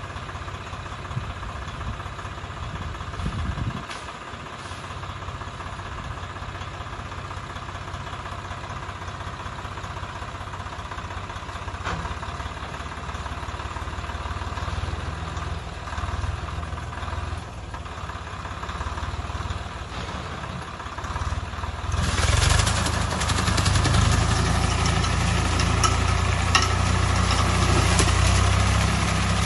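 Swaraj 744 tractor's three-cylinder diesel running steadily at low speed, driving the PTO-powered Chopking banana stem shredder behind it. About 22 seconds in, the sound turns suddenly louder and noisier as the shredder chops into banana stems, and stays that way.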